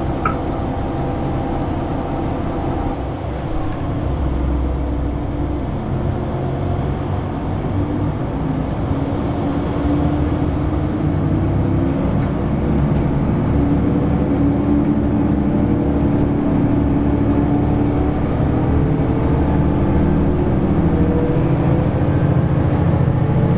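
Diesel engines of a JR Shikoku 2000 series railcar heard from inside the passenger cabin, a steady drone that slowly rises in pitch and grows louder as the train pulls away.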